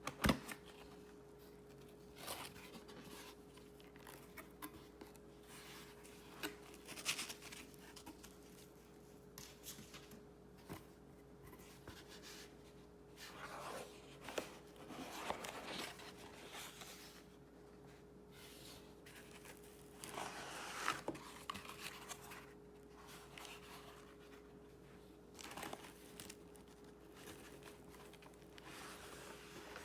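Faint, scattered rustling, crinkling and small clicks of computer parts and their packaging being handled, with a sharp click at the start and a faint steady tone underneath.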